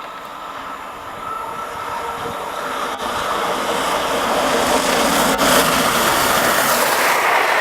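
Peppercorn A1 Pacific steam locomotive Tornado and its train approaching at speed, the rushing sound of locomotive and rails growing steadily louder, with a couple of sharp clicks.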